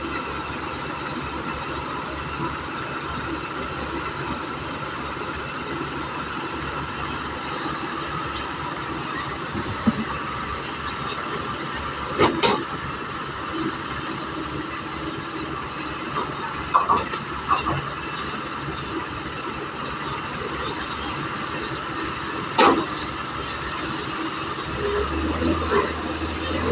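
Komatsu hydraulic excavator's diesel engine running steadily while it loads soil, with about five sharp metallic clanks spread through it. A deeper low hum comes in near the end.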